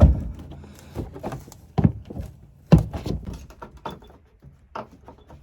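An HVAC return-vent cover and filter being handled and forced: a string of knocks and thuds, loudest at the start and about three seconds in, with rustling between them.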